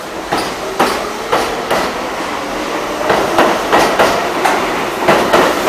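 R62A subway train's steel wheels clacking over rail joints: a run of sharp, evenly spaced clacks that come a little quicker later on, as the train picks up speed.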